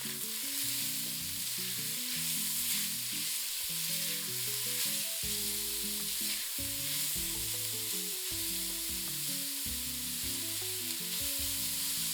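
Chopped red onion sizzling in hot olive oil and pancetta fat in a pot as it is sautéed: a steady frying hiss.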